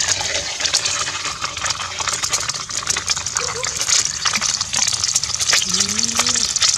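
An egg frying in hot oil in a steel wok: steady sizzling with many small crackling spatters. A short voice sound rises and falls about six seconds in.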